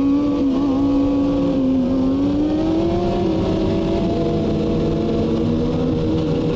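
Sportbike engines running at speed on a group ride, the engine pitch dipping, then climbing for a couple of seconds and falling off near the end as the throttle is eased.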